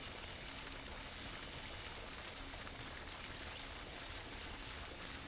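Faint, steady splashing of water churned by a pond aerator, with a few faint ticks.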